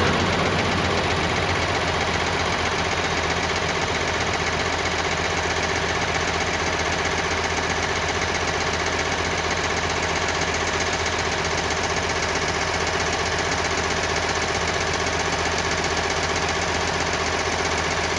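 The four turboprop engines of a C-130J Super Hercules at take-off power, heard as a steady, even drone with a low hum.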